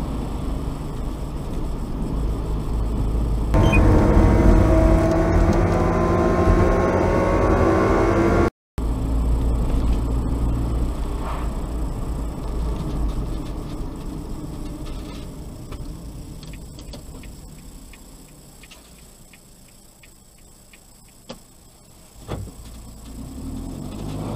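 Car driving, heard from inside the car: engine and road noise, with the engine climbing in pitch as the car speeds up. Partway through the sound cuts out for a moment. It then fades as the car slows almost to a stop, with a couple of clicks near the end.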